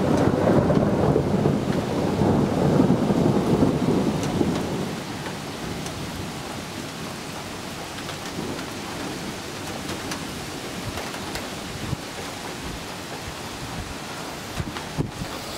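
Thunder rumbling loudly for the first few seconds, then dying away, leaving steady rain. A few sharp taps come near the end.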